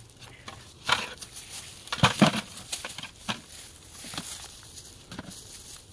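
Freshly cut bamboo shoots knocking against each other and against a plastic bucket as they are put in: a series of irregular knocks, loudest in a cluster about two seconds in. Dry bamboo leaves rustle underneath.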